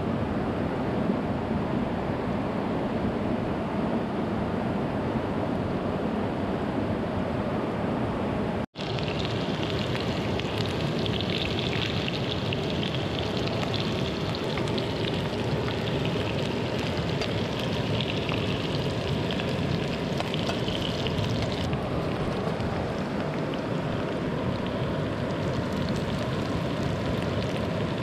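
Steady rushing water of a hill stream. The sound cuts out for an instant about nine seconds in, and after that the rush is brighter and hissier.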